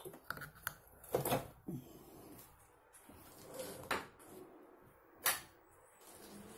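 Clicks and knocks of plastic and metal parts of a power wheelchair being handled and moved, a scattered series with the sharpest knocks about a second in, near four seconds and just past five seconds.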